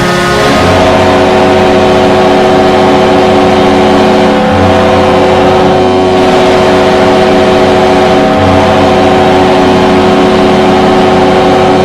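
Hockey arena goal horn: one long, loud, steady blast of several tones sounding together. It starts about half a second in and holds, its lowest tone shifting twice.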